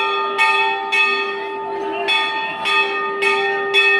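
Temple bells struck again and again, roughly every half second with a short pause near the middle, their ringing tones carrying on between strikes.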